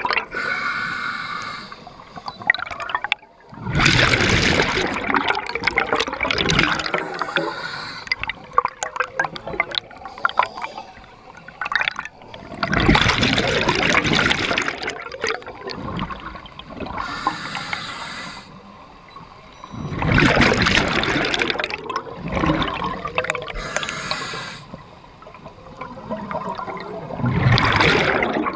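Scuba diver breathing through a regulator underwater: a short hiss on each inhale and a long gurgling gush of exhaled bubbles, one breath roughly every seven seconds.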